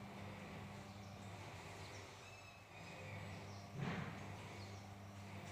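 Faint background of a steady low hum with small birds chirping thinly now and then, and one brief louder noise about four seconds in.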